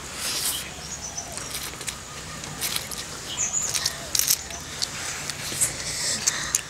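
Instant noodles being slurped and chewed: short, wet sucking and smacking mouth sounds at irregular moments.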